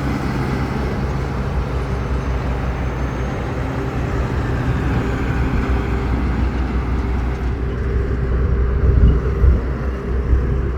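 Motor vehicle running steadily on a highway: a low engine drone with road and wind noise, swelling a little about nine seconds in.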